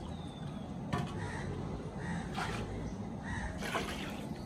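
Crows cawing: a string of short calls repeated every second or so.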